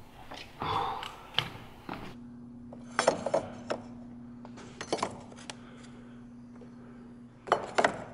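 Light clicks and metallic clinks of a speed square being set against the corners of a door frame, in small clusters about three seconds in, around five seconds, and again near the end, over a faint steady hum.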